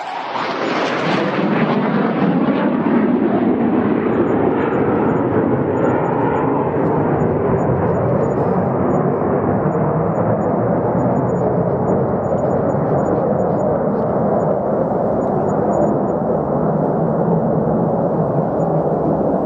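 Fighter jet engine roar, loud and steady, brightest just after it begins and then turning gradually duller as its hiss dies away.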